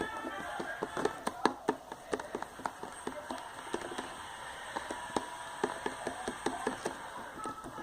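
Glue slime being squished and kneaded by hand, a quick irregular run of sticky clicks and squelches as freshly added activator is worked in.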